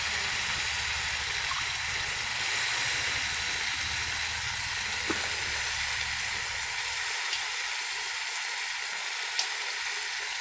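Raw mutton pieces sizzling in hot oil and masala in a kadai, a steady hiss, with a low rumble under it that fades out about seven seconds in. A couple of faint ticks from the spatula against the pan.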